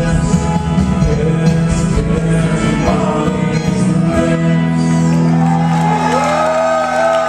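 A rock band playing live in a large hall, with singing; about four seconds in the drums drop out and the band holds a sustained closing chord while a voice slides over it.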